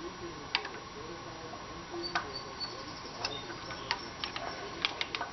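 Sharp, irregular clicks and taps of hand tools working on metal while the carburetor mounting bolts are fitted and tightened, about a dozen in all at uneven spacing.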